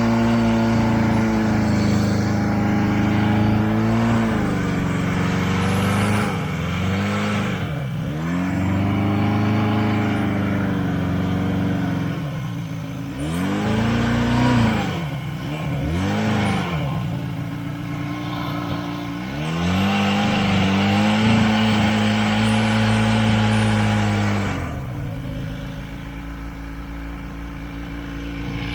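Two-stroke engine of a Buran SB-640A snowmobile running hard through deep snow, its revs dropping and picking back up several times as it bogs and pulls, then easing off near the end.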